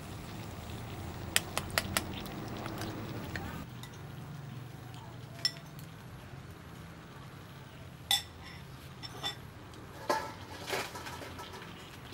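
A spoon clinking against a ceramic bowl: a scattered series of short, sharp clinks, a second or more apart.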